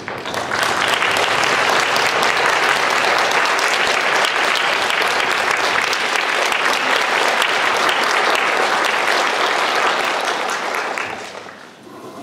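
Audience applauding in a concert hall. The applause swells within the first second, holds steady, and dies away near the end.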